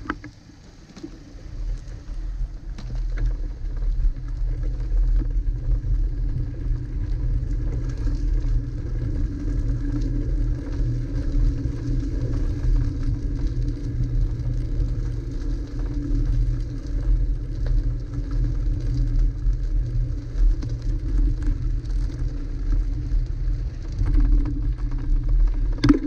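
Wind buffeting a bike-mounted action camera's microphone, with the bicycle's tyres rumbling on the road. It is a steady low rumble that builds over the first few seconds as the bicycle gets up to speed.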